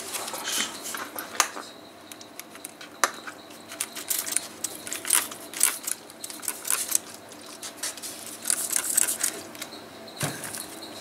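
Irregular rustling, crinkling and small clicks of hands handling a self-adhesive foam sealing strip and its backing while fitting it to a car heater radiator.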